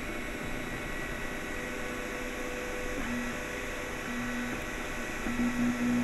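Anet A8 3D printer running: a steady hum and hiss from its cooling fans, with short whining tones from the stepper motors as the print head moves, three times in the second half.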